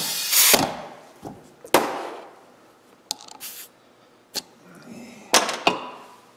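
Short bursts of compressed air hissing from an air chuck pressed onto a lawn tractor tire's valve stem as the tire is inflated. There is a cluster of bursts at the start, one sharp burst about two seconds in, then a quiet stretch before two more bursts near the end.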